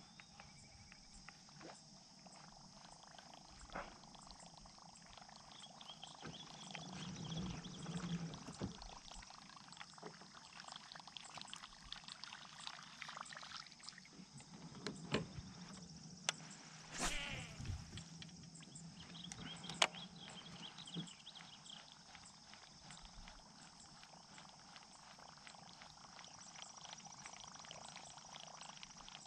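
Faint lakeside ambience at dawn: a steady high insect drone with scattered animal calls, and now and then sharp clicks and knocks from the fishing tackle and kayak.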